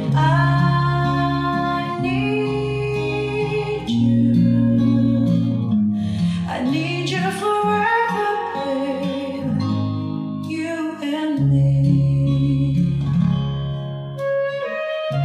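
Recorded music played through hi-fi loudspeakers driven by a vintage Sansui AU-666 amplifier, during a listening test: a song with guitar and singing over a steady bass line.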